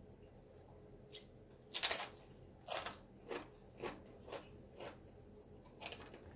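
A crunchy bite into a tortilla chip with nacho cheese about two seconds in, followed by a run of chewing crunches roughly every half second.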